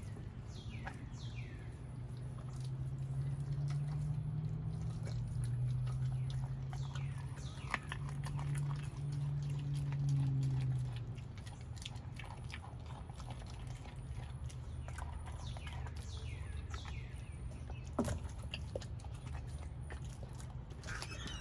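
A young pit bull chewing and gnawing a whole raw chicken, with scattered sharp cracks and crunches as it bites through the carcass.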